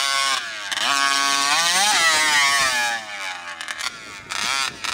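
RCMAX 80cc two-stroke gas engine in a fifth-scale RC monster truck revving as the truck drives: a long rise and fall in pitch over the first three seconds, then quieter, with short throttle blips near the end.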